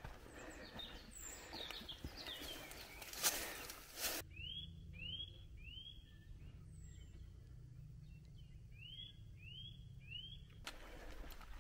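Footsteps and rustling on a woodland path, with a sharp knock about three seconds in. Then, over a low rumble, a person whistles three quick upswept notes about half a second apart, pauses, and whistles three more.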